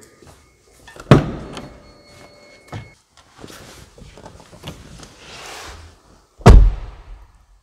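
A person climbing into a van's driver's seat: a sharp knock about a second in, then clothes rustling against the seat. Near the end the Mercedes Sprinter's driver's door shuts with a heavy, deep thud, and the cab goes quiet.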